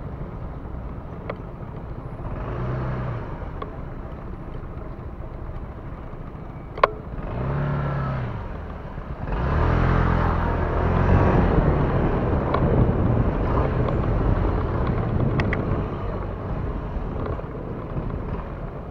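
Motorcycle engines running and revving. A short rev rises and falls about eight seconds in, then a louder, longer run starts at about nine and a half seconds, over a low rumble. A single sharp click comes just before the first rev.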